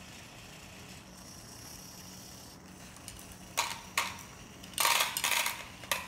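EZ-Robot JD Humanoid's arm servo motors whirring in short bursts, starting about three and a half seconds in, as the arm moves a scoop of Skittles over to the cup.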